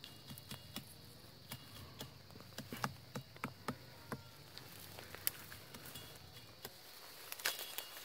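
Scattered dry snaps and crackles of twigs and branches being grabbed and pushed aside in dry brush, at irregular moments, over a faint steady buzz of flying insects.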